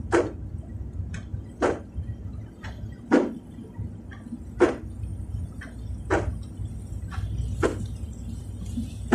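Windshield wipers sweeping across rain-wet glass, one stroke about every second and a half, over the car's steady low road and engine rumble.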